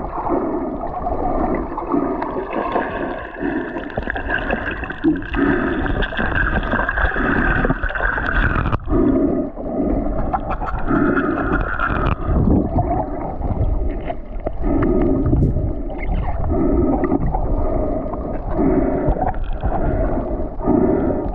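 Muffled underwater sound picked up by an action camera in its housing while free diving, with a dull low pulse about once a second and a hollow, whistly hiss above it.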